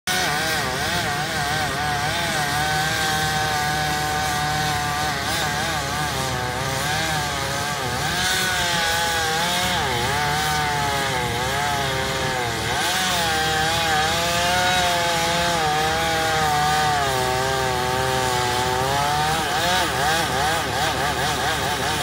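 Chainsaw running at high speed as it cuts into a large tree trunk, its pitch wavering and dipping over and over as the chain bites into the wood.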